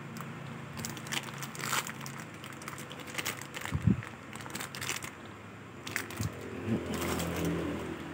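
Handling noise from a Daiwa Emblem Z 3500i spinning reel: scattered light clicks and crinkly rustles, with a soft knock about four seconds in, over a low steady hum.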